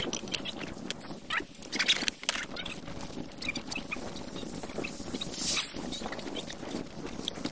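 Rustling, scraping and light irregular knocks of bags and luggage being shifted around in a small car's rear cargo area, with a brief rush of noise about five and a half seconds in.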